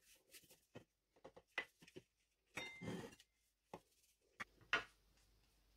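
Plastic fondant smoother working over a fondant-covered cake and knocking and scraping against a cut-glass cake stand: faint scattered clicks and scrapes, with a brief ring about halfway through.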